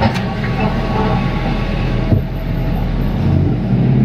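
Ford F-250 Super Duty pickup heard from inside its cab, a steady low engine and road rumble as it moves off, with a sharp click near the start and another about halfway.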